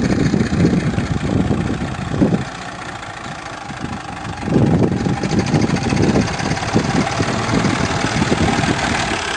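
Massey Ferguson tractor's diesel engine running steadily as the tractor approaches slowly, pulling a trailer stacked with hay bales. The sound grows louder about halfway through.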